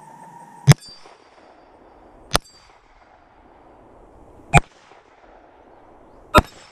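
Four single shots from a Glock 19 Gen 4 9mm pistol, fired one at a time, about two seconds apart.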